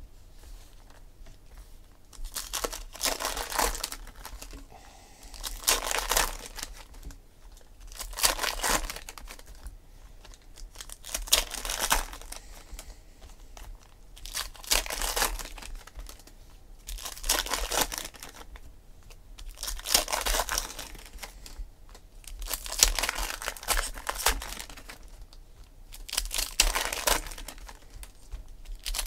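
Foil wrappers of baseball card packs being torn open and crinkled, one pack after another, about nine times at roughly three-second intervals.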